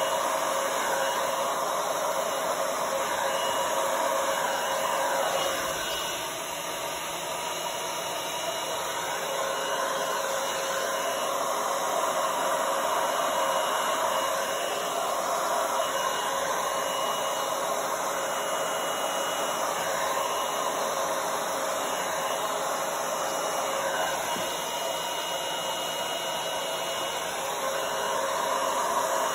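Handheld blow dryer with a narrow concentrator nozzle running on high, a steady rushing of air with a faint motor whine.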